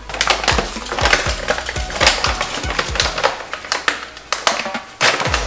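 Crinkling and crackling of a dog-treat bag being pulled open by hand, over background music with a steady beat.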